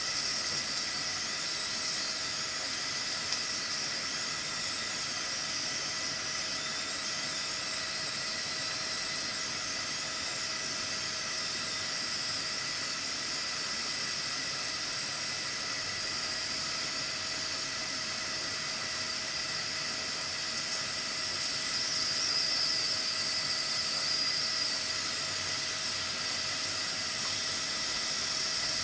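Pressure cooker under pressure, venting steam through its weighted pressure valve: a steady hiss with a faint steady whistling tone, growing slightly louder about three quarters of the way through. The cooker has come up to pressure and is regulating.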